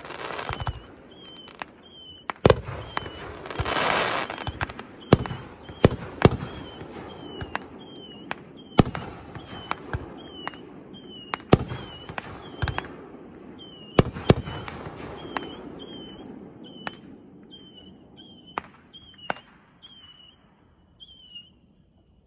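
Aerial fireworks shells bursting in a string of sharp bangs, irregularly spaced and sometimes in quick pairs, with a spell of crackling about four seconds in. The bangs thin out and fade near the end as the display winds down.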